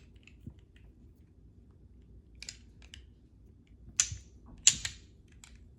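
Sharp plastic clicks and snaps from fidget toys being handled: a few light clicks a couple of seconds in, then two loud snaps a little under a second apart near the end.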